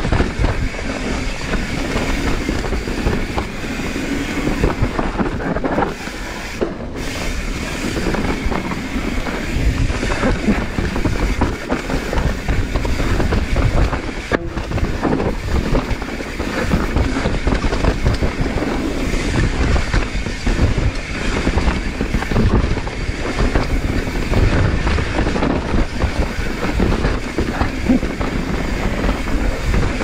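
Mountain bike descending a rough trail at race speed: tyres on dirt and rock, with the chain and frame rattling in a constant dense clatter over a steady rumble.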